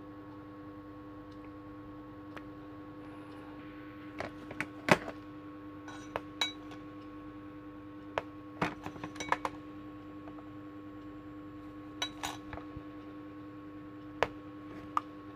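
Scattered sharp plastic clicks and taps from handling a toy bracelet, coming in small clusters with the loudest about five seconds in, over a steady electrical hum.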